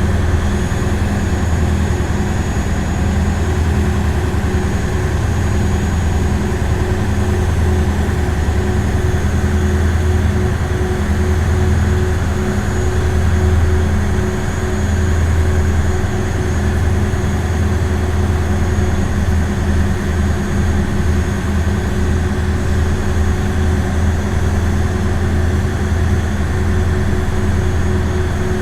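Ferry boat engine running at a steady speed: a deep, even low drone with a fainter steady tone above it.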